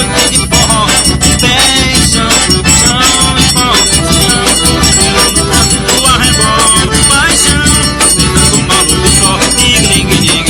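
Live forró music in arrasta-pé style, with a shaker rattling along to a steady dance beat.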